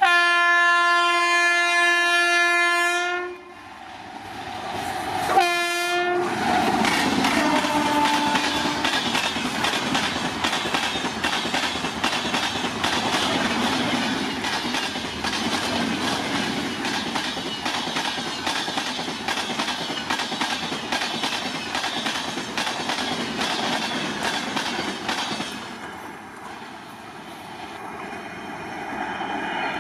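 WAP-7 electric locomotive's horn sounding in one blast of about three seconds, then a second short blast. The train's coaches then rush past for about twenty seconds with a rapid clickety-clack of wheels on the rails, fading as the last vehicle goes by.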